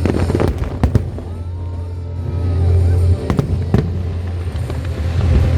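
Aerial fireworks going off: a rapid crackle of small bursts in the first second, then two sharp shell bursts about half a second apart a little past three seconds in. Display music plays underneath.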